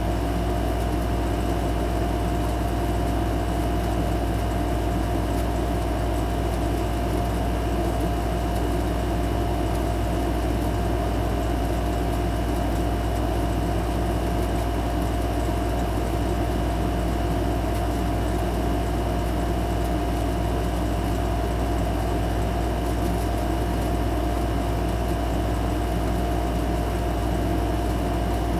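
A steady machine hum with a constant pitched whine over it, unchanging throughout.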